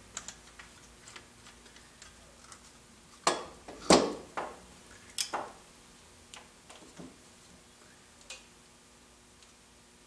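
Scattered small clicks and knocks from handling alligator-clip test leads and a removed oil pressure switch on a workbench. The louder knocks come between about three and five and a half seconds in.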